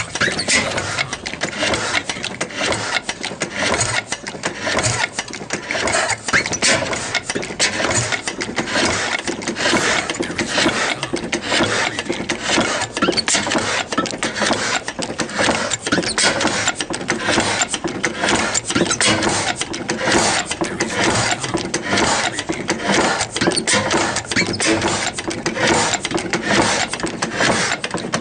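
Old steam engine running steadily with a rapid, even mechanical clatter.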